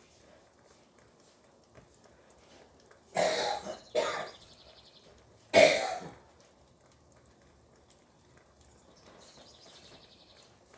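A person coughing three times in quick succession, the last cough the loudest.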